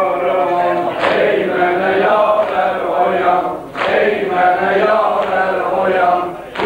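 Men's voices chanting a Shia Muharram mourning lament (mərsiyə) in a slow, drawn-out, wavering melody. Two sharp slaps, about a second in and near four seconds, from hands striking chests in mourning.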